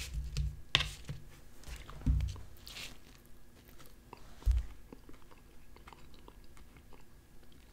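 A fork clicking against a plate as pieces of roasted red potato and onion are picked up, then close-miked chewing of the bite. A couple of low thumps come about two and four and a half seconds in.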